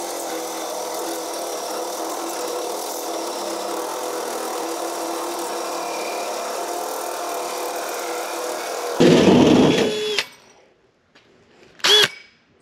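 Cordless drill turning a hole saw through the boat's bulkhead, running steadily for about nine seconds, then louder for about a second before it stops. A short sharp click follows near the end.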